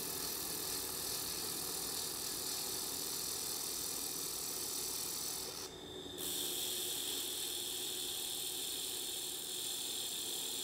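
Handheld laser welder running on quarter-inch steel plate, a steady high hiss of the beam and spatter. It cuts out briefly about halfway through and starts again.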